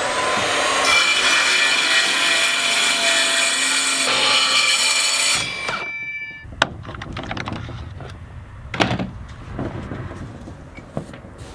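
DeWalt track saw cutting through a sheet of plywood along its guide rail: a loud, steady whine for about five seconds that stops abruptly. After it, a sharp knock and a few lighter knocks.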